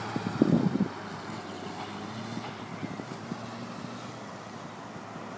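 Motorcycle engine revving loudly as the bike passes close by, about half a second in, then running more quietly and fading as it rides away.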